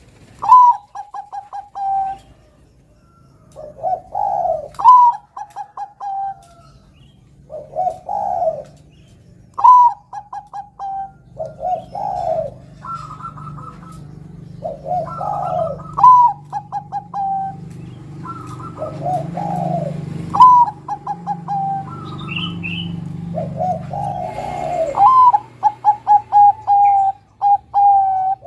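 Zebra dove (perkutut) singing its cooing song over and over, about every three to four seconds: a low swelling coo, then a higher note that breaks into a quick run of short staccato notes. A low steady rumble sits in the background through the middle.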